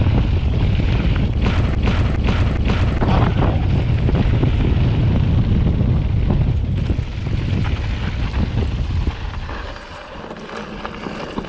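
Wind rushing over the microphone and a mountain bike rattling and knocking as it rides fast over rough trail, with wood and a hole jolting through the wheels. The rush and rattle ease off about nine seconds in as the bike slows.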